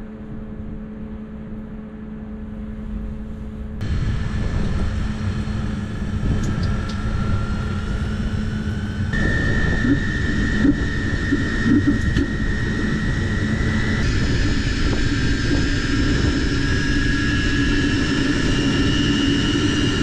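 Hydronic diesel heater starting up: its combustion air fan runs over a steady hum and rush. The sound steps louder about four seconds in, and a whine joins about nine seconds in and slowly rises in pitch as the fan speeds up.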